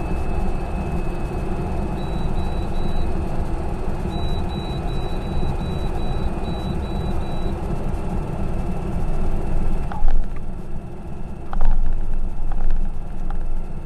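Single engine air tanker's engine and propeller running steadily, heard on board as the aircraft rolls fast along the runway. A high beep sounds in short repeated pulses for a few seconds, and about ten seconds in the engine note drops and a few knocks and rattles come.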